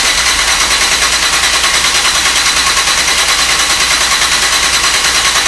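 Fiat 1.4-litre turbo four-cylinder, newly converted from MultiAir to a DOHC T-Jet head, turning over on the starter with a steady, even pulse of about ten beats a second, not yet catching.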